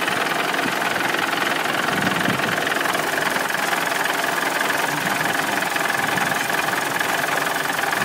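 Honda Step WGN's engine and automatic transmission idling in Park, heard close up in the engine bay: a steady running sound with a constant high hum over it. The transmission is under check for an abnormal noise, and its torque converter is said to be failing.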